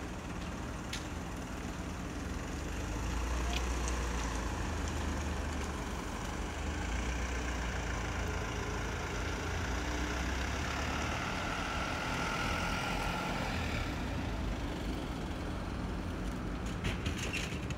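Steady low rumble of an idling engine, with a few faint clicks near the end.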